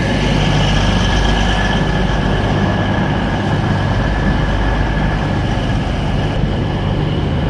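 Diesel passenger train standing at a platform with its engines idling: a steady low hum with a constant high-pitched whine over it.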